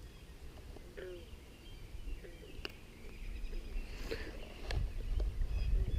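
Small birds calling in short chirps over a low outdoor rumble, with a couple of sharp clicks; the low rumble grows louder in the second half.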